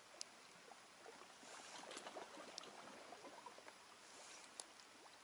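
Faint water lapping and trickling at the water's edge, with scattered small clicks and ticks.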